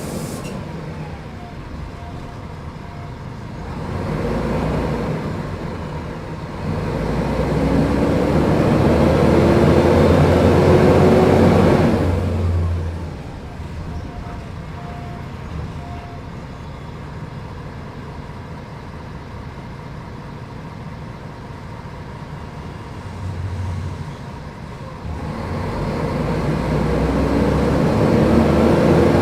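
Mercedes-Benz O500UDA articulated bus's diesel engine pulling away. The pitch climbs steadily for several seconds, falls back to a low idle-like run about twelve seconds in, then rises again near the end as the bus accelerates once more.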